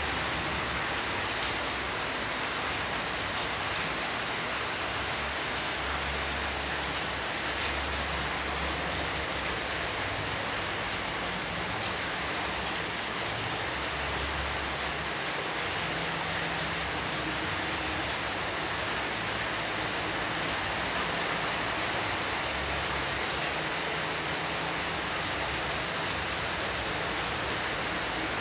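Steady rushing noise, even and unchanging throughout, with nothing standing out above it.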